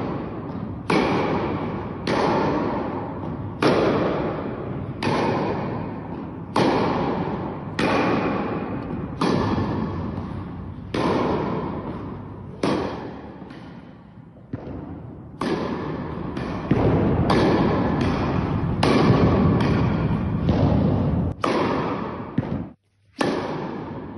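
Tennis ball struck back and forth by rackets in a rally, one sharp hit about every one and a half seconds, each echoing on in the hard-walled indoor tennis hall. The hits come closer together in the second half, and the sound cuts out for a moment near the end.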